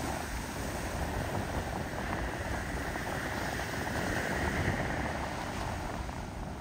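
Ocean surf rushing on the beach with wind on the microphone, a steady wash that swells briefly in the middle.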